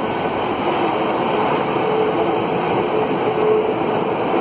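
GWR Class 150 Sprinter diesel multiple unit moving past along the platform: a steady rumble of wheels and underfloor diesel engine, with a faint steady hum.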